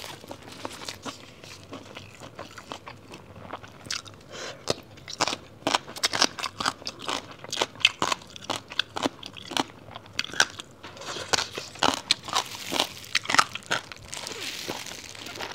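Close-miked eating of a large wrap filled with crunchy papaya shreds: many sharp, irregular crunches, bites and chewing noises.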